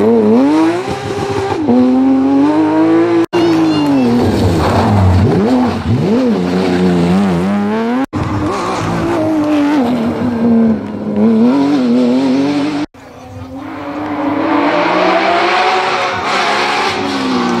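Porsche 911 GT3 rally car's flat-six engine revving hard at full throttle, its pitch climbing and dropping again and again through gear changes and braking. The sound comes in several short clips cut together, with sudden breaks about 3, 8 and 13 seconds in.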